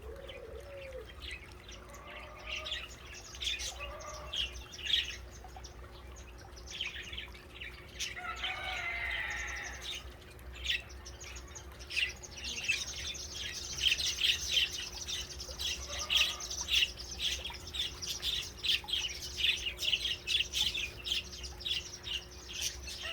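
A flock of small birds chirping, many short high chirps overlapping, growing busier and denser around the middle and staying that way, with a few lower calls mixed in.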